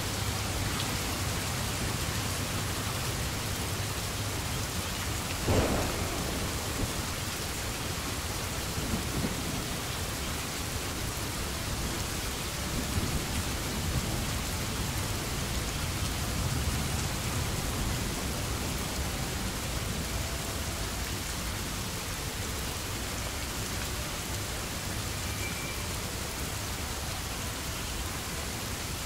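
Steady rain falling, with low rumbling thunder that swells and fades, and one sharper thunderclap about five and a half seconds in.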